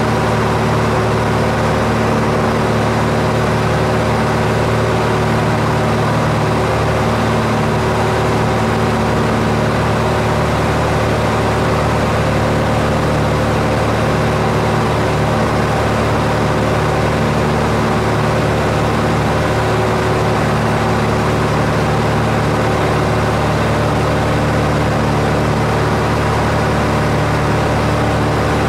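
Aircraft engine drone, loud and perfectly steady, with a constant hum of several tones and no change in pitch.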